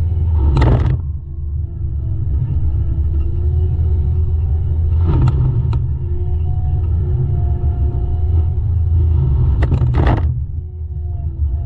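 Heavy diesel land-clearing machinery running steadily with a deep engine rumble. Three short bursts of higher noise come about every four to five seconds.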